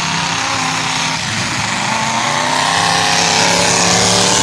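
Demolition derby car engines running hard and revving, the engine pitch climbing and getting louder in the second half.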